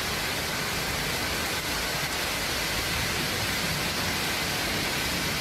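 Steady, even rushing hiss of floodwater pouring across a flooded street.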